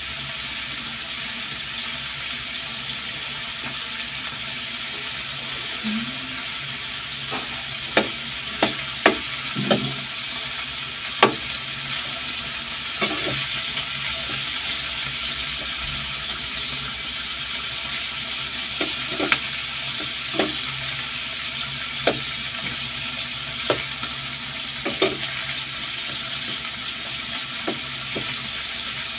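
Chicken pieces sizzling steadily as they fry in a pan, with sharp, irregular clicks and scrapes of a metal spatula against the pan as they are stirred and turned, starting about eight seconds in.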